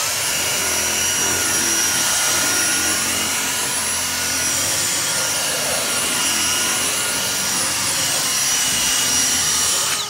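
Dyson V6 Motorhead+ cordless stick vacuum running with its motorized brush-bar head on stair carpet: a steady, high-pitched motor whine over a rush of air, starting abruptly and cutting off after about ten seconds.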